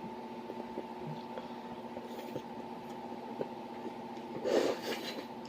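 A short, noisy breath about four and a half seconds in, a person breathing hard against the chilli heat while eating spicy noodles, over a steady low electrical hum and a few faint clicks.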